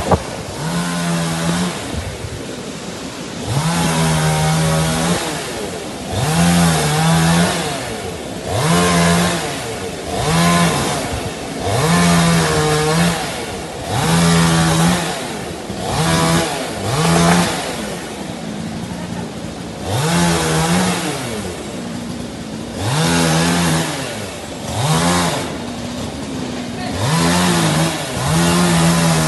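Chainsaw revved again and again, over a dozen times about every two seconds, each burst rising in pitch and dropping back between cuts.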